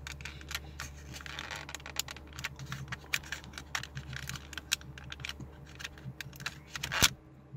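Plastic dashboard trim and push-buttons clicking and rattling as they are handled and pulled loose: many small irregular clicks, with one louder click near the end.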